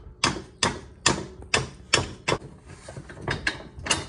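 Floor jack being pumped by hand, its handle and pump mechanism giving sharp metallic clicks about twice a second, with a short pause a little past halfway.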